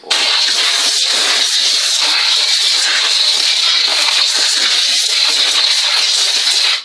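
Compressed-air blow gun blasting a steady, loud hiss of air into an empty car air filter housing to clean out the dust. The blast starts abruptly and cuts off sharply just before the end.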